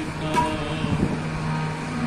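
Harmonium playing sustained held notes, with a single short click about a third of a second in.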